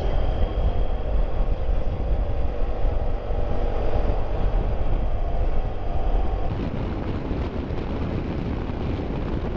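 BMW F700GS motorcycle engine running under a steady low wind rumble on the microphone; the sound shifts a little about two-thirds of the way through.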